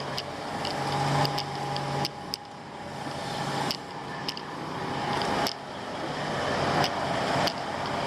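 Motor vehicle engine running, its noise swelling and dropping back sharply about every two seconds, with scattered sharp clicks.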